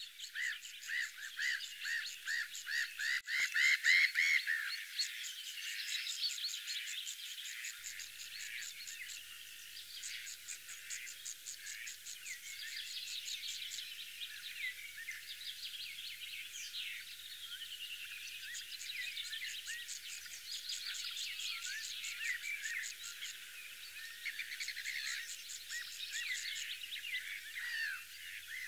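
A chorus of high animal calls: chirps, gliding whistles and quick runs of repeated notes, overlapping throughout, with no deep sounds beneath them.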